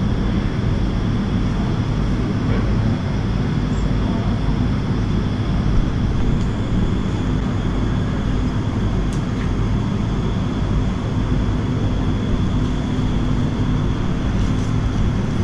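Steady low droning hum with an even rushing noise over it, unchanging, with no clear events.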